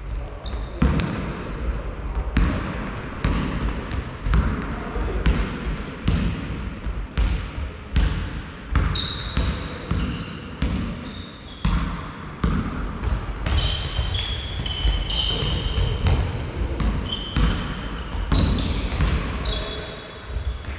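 Basketball bouncing on a sports-hall floor as it is dribbled, sharp echoing bounces about once a second. From about halfway in, short high squeaks of sneakers on the court come in among the bounces.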